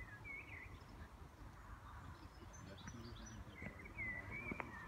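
Small birds singing in short warbling phrases, once at the start and again near the end, with a few faint higher chirps in between, over a quiet steady outdoor background hum.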